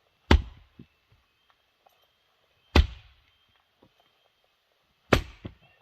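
Three sharp axe strikes, about two and a half seconds apart, as a short-handled axe (Casterman prototype head on an Osage orange handle) splits rounds of balsam wood; each blow is a crisp crack followed by a small knock.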